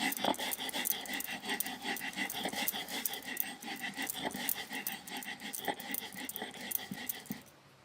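Stone grinding on a sil-batta: the stone roller rubbed back and forth over the flat grinding slab in a steady run of rasping scrapes and small clicks, stopping abruptly near the end.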